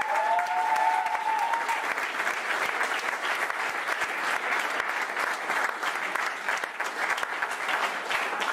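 Audience applauding steadily, with a brief high held tone over the first second or so.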